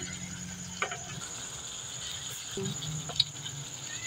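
Chicken pieces simmering in a thick soy-based sauce in a pan, with soft bubbling and two sharp pops, about a second in and past three seconds. A steady high-pitched tone runs underneath.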